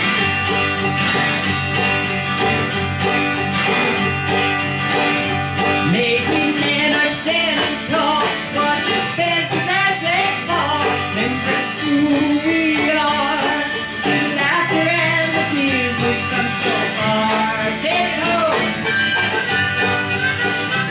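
Acoustic guitar, banjo and mandolin playing a country-folk tune together in a stretch without lyrics. From about six seconds in, a wavering melody line rises and falls above the strummed chords.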